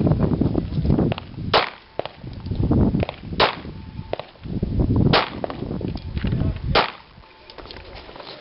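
Pistol shots at a handgun match: four sharp reports at a slow, even pace about one and a half seconds apart, with fainter pops between them.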